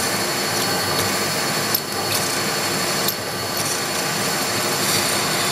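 A machine spindle running steadily while a twist drill cuts a hole into an aluminum plate, started gently without a center drill. There is a brief click about two seconds in.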